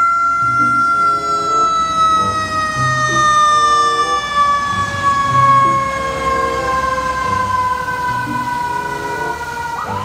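Fire truck siren, a Seagrave tiller ladder truck's, holding one long tone that slowly falls in pitch.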